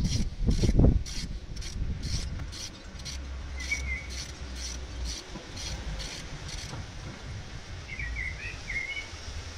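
Socket ratchet clicking in quick regular strokes, about three clicks a second, as a seat bolt is turned; the clicking stops about seven seconds in. A few heavy knocks right at the start, and brief high chirps twice.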